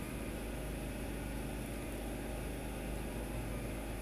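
Steady low hum with an even hiss behind it: constant background machine or room noise, with no separate events.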